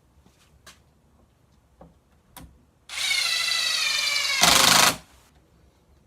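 Impact driver driving a screw into wood: about a second and a half of motor whine that sags slightly under load, then half a second of rapid hammering impacts as the screw seats, stopping abruptly. A few faint clicks come before it.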